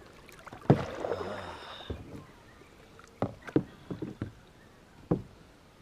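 Sharp knocks and taps on a kayak, a scattered handful of them from about three seconds in, with a brief low voice about a second in.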